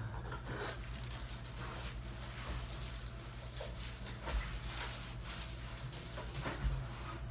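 Light clicks and rustling of hands handling dental handpieces and their hoses at a dental delivery unit, over a steady low hum.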